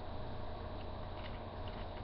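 Steady low electrical hum with a faint even hiss and a thin constant tone, broken by a few faint light ticks.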